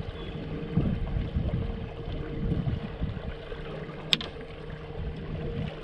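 River water lapping against an aluminum boat hull, with wind buffeting the microphone and a steady low hum underneath. A single sharp click about four seconds in.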